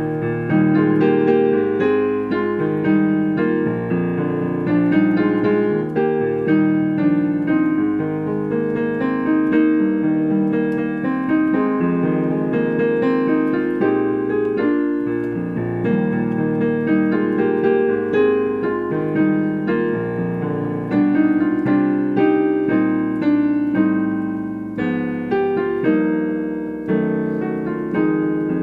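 Solo piano music, chords and melody notes played without a pause.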